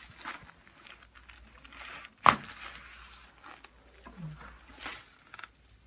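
Crinkling and rustling on a chiropractic treatment table as the patient turns over onto their back, with one sharp crack about two seconds in.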